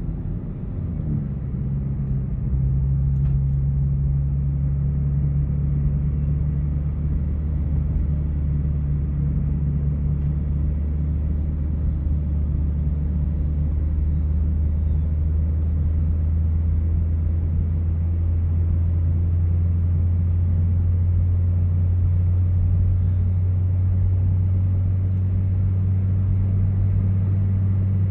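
Cabin sound of a 2018 Hyundai Elantra GT Sport's 1.6-litre turbo four with an aFe axle-back exhaust while cruising: a steady low engine and exhaust drone over road noise.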